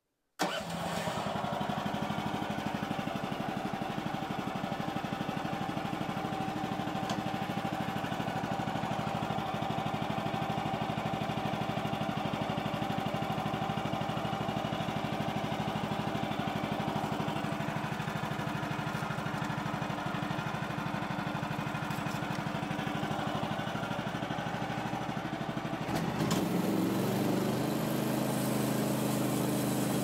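Woodland Mills HM130 Max sawmill's engine running steadily. It comes in suddenly about half a second in. About 26 seconds in, its sound changes and gets a little louder.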